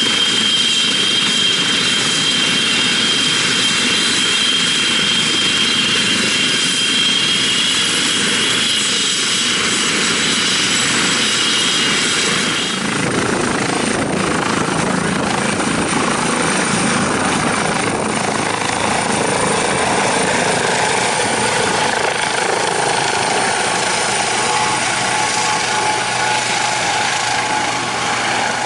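Eurocopter EC135 air-ambulance helicopter running on the ground with a steady high turbine whine. About halfway through it lifts off, and the whine gives way to the changing rotor noise of the helicopter climbing away overhead.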